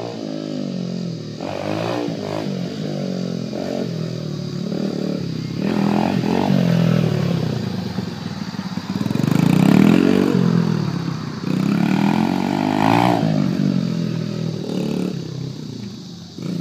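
Honda XR100R dirt bike's small single-cylinder four-stroke engine revving up and falling back again and again as it is ridden, loudest as the bike passes close about ten seconds in.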